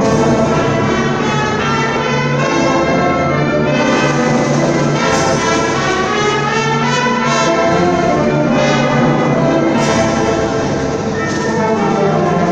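Symphony orchestra playing, with brass (trumpets and trombones) prominent over the strings in sustained, changing chords.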